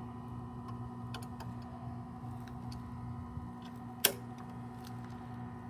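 Steady machine hum with a single sharp click about four seconds in.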